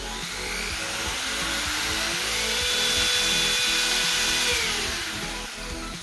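Corded Ryobi electric drill run up slowly on its trigger: its motor whine rises steadily in pitch, holds, then winds down near the end. The slow start keeps the motor's starting surge under what the 600 W portable power station feeding it can supply; running, the drill draws about 280 watts.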